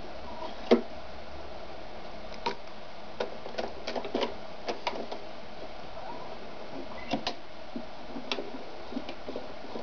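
Scattered metallic clicks and small knocks from the bobbin area of an Ideal 730 sewing machine as the bobbin case is fitted and the slide plate is taken off; the motor is not running. The sharpest click comes about a second in, the rest irregularly, over a faint steady hum.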